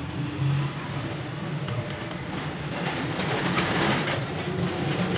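Steady rumble of running vehicle engines, swelling about three seconds in.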